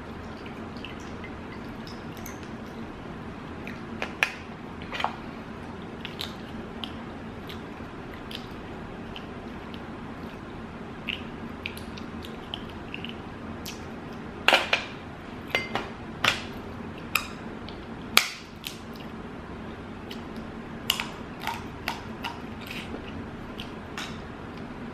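Close-up eating sounds from a seafood boil meal: scattered sharp clicks and short wet smacks of chewing and handling food, most frequent and loudest a little past the middle, over a steady low hum.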